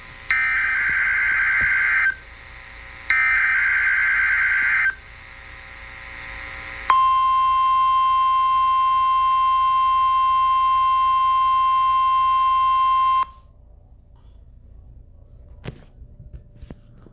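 NOAA Weather Radio test alert: two bursts of warbling SAME header data tones, each nearly two seconds long, with radio hiss between them. A steady 1050 Hz warning alarm tone follows for about six seconds and cuts off sharply. Faint hiss with a couple of clicks comes after it.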